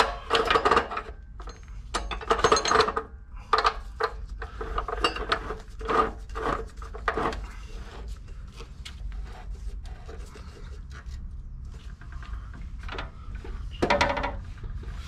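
Steel square tubing and the sliding vise of a Yato abrasive cut-off saw being handled: irregular scrapes, rattles and clunks of metal on metal as the piece is set and the vise screw is turned, with the saw's motor off.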